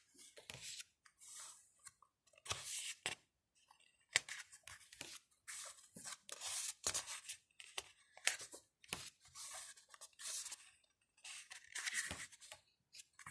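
Pages of a paperback album photobook being turned and handled by hand: many short paper swishes and rustles at irregular intervals.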